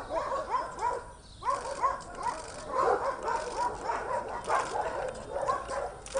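A dog barking in a quick run of short, high yaps, about three a second, with a brief break about a second in.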